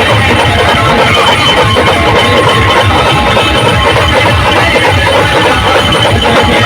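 Very loud, distorted music blaring from a DJ sound system, with heavy pulsing bass.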